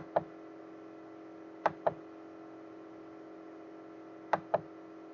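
Computer mouse clicks in pairs, a quick click-click about every two seconds (three pairs), as the next-image arrow of a web photo gallery is clicked. A steady low hum runs underneath.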